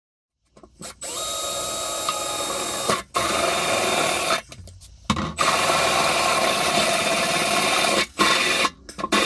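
Cordless drill boring a hole through a stainless steel sink, starting about a second in and running in several long bursts with short stops between them.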